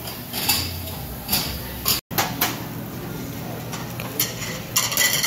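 Metal tongs and kitchen scissors clicking and clinking against a tabletop grill grate as meat is cut, in scattered taps with a quick run of clicks near the end.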